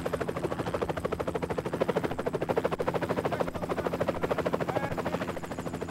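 Small turbine helicopter flying low past, its main rotor beating in a fast, steady chop over a constant engine hum.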